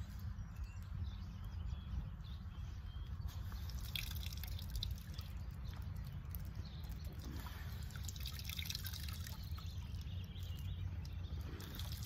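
Water dripping and trickling into a tub as a wet cotton sheet is twisted and wrung out by hand, with irregular spells of splashing. A steady low rumble runs underneath.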